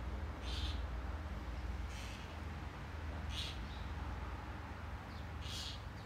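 A bird calling outdoors, one short high call about every second and a half, four times, over a steady low rumble.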